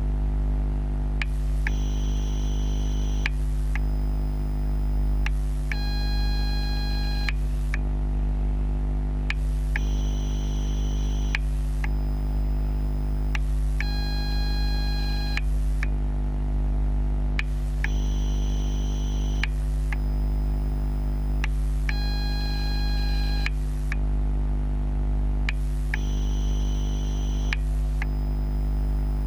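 Electrical noise from a ten-bay Ni-MH battery charger charging AA cells, picked up through contact microphones: a steady low mains-type hum under a high-pitched whine that switches in and out about every two seconds in a repeating four-second cycle, with a tick at each change.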